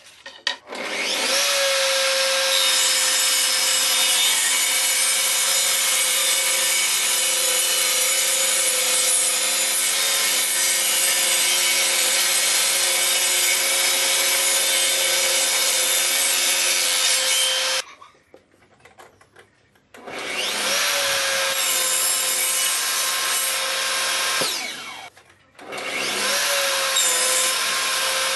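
Table saw ripping a pine board: the motor spins up about a second in, then the blade runs steadily through the cut with a high hum and cuts off abruptly near 18 seconds. Two shorter runs follow, each beginning with the motor spinning up, as small pine pieces are crosscut.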